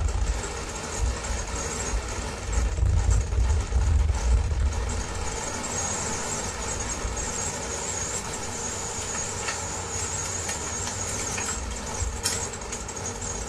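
Experimental noise music: a dense droning wash of sound with steady held tones over a fluttering low rumble that thins out about five seconds in.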